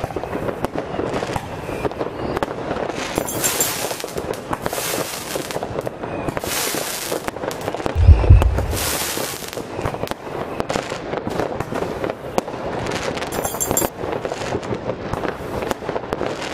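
Weco Powertec Outbreak multi-effect firework fountain burning: a continuous dense crackle and hiss that surges into louder hissing bursts several times. A loud bang about eight seconds in.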